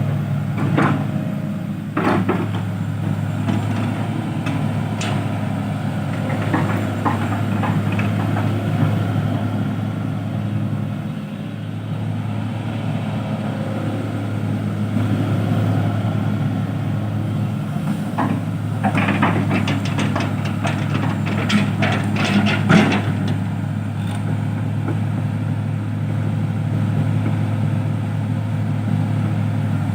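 Heavy diesel engine running steadily at a low, even hum. A burst of rapid knocks and rattles comes about two-thirds of the way through.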